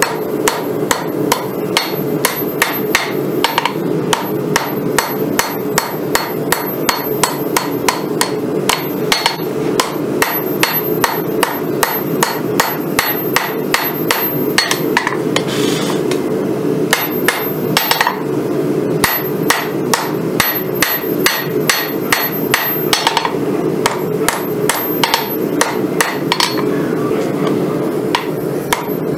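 Hand hammer striking a glowing hot Damascus steel billet on an anvil, forging the blade in quick, even blows of about three a second, with a short break about halfway through. A steady low rumble runs underneath.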